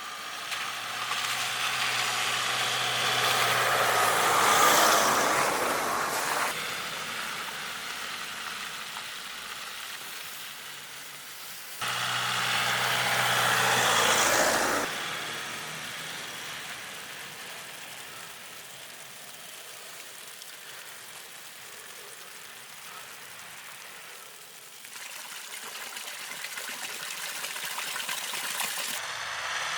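4x4 vehicle driving on snowy roads, engine and tyre noise across several cut shots. It swells loud twice, in the first few seconds and again about halfway through, and is quieter in between and afterwards.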